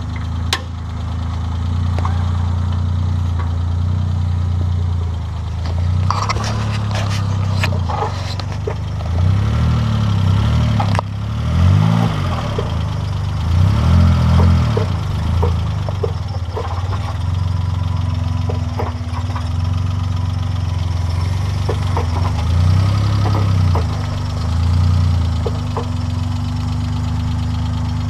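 Suzuki Jimny's engine running at low revs as it crawls over rocks, rising and falling in several throttle swells about a third of the way in and again near the end. Scattered short clicks and knocks ring out over the engine.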